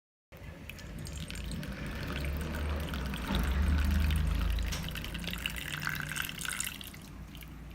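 Hot turmeric tea poured through a sieve into a cup, the liquid splashing and trickling. The pour starts abruptly, is strongest around the middle and tapers off near the end.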